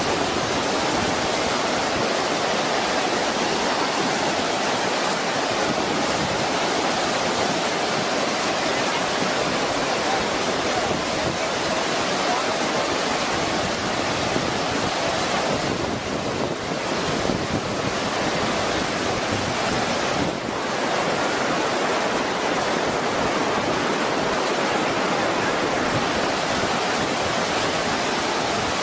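Floodwater rushing in a steady, continuous roar, dipping briefly twice in the middle.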